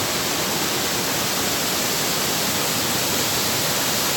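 Waterfall rushing, a steady loud roar of falling water.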